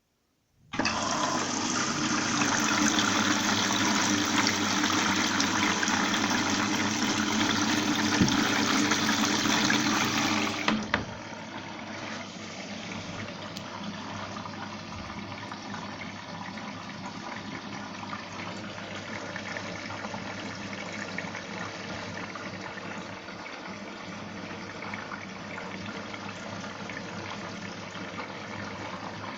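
Rushing water that starts suddenly, runs loud for about ten seconds, then drops to a quieter steady flow.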